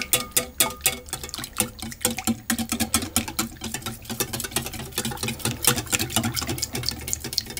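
Wire balloon whisk beating thin pancake batter in a glass bowl, mixing in melted butter: rapid, irregular clicking of the wires against the glass with wet slapping of the batter.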